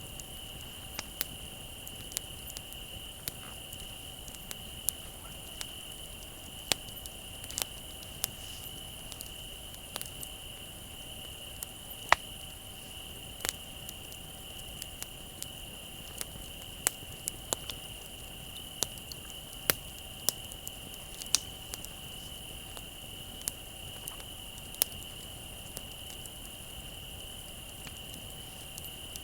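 Wood bonfire crackling, with sharp pops at irregular intervals, over crickets trilling steadily.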